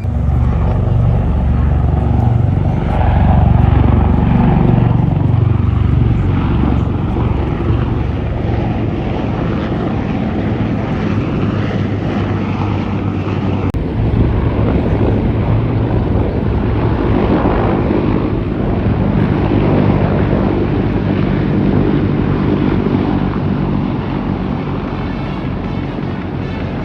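Aircraft engines droning loudly close by, a low humming tone whose pitch shifts as the aircraft moves, loudest a few seconds in.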